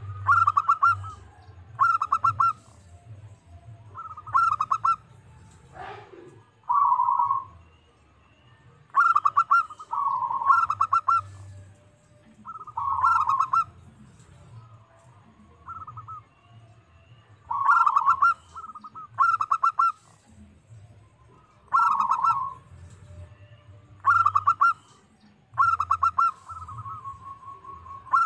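Zebra dove (perkutut) cooing over and over: short, rapid, stuttering coo phrases repeating every second or two. This is the local perkutut song used as a lure call to provoke other doves to answer.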